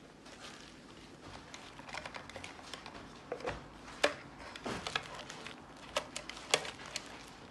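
Handling noise from a metal-cased KTMFlash ECU programmer box and its packing: irregular clicks and knocks with plastic and bubble-wrap crinkling, the sharpest knocks about four seconds in and again near the end.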